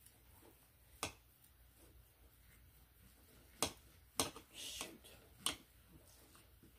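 Steel knife and fork clicking against a ceramic plate while cutting a steak: four sharp clicks, with a short scrape of the knife about four and a half seconds in.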